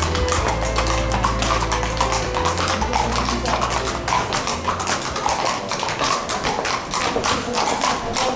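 Shod horses' hooves clip-clopping on stone paving as several horses are led at a walk, over background music.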